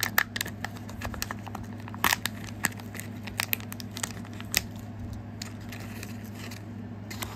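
Crinkling and tearing of the plastic wrapping as a Kinder Joy toy packet is opened, in irregular sharp crackles and clicks, busiest in the first five seconds and sparser after. A steady low hum runs underneath.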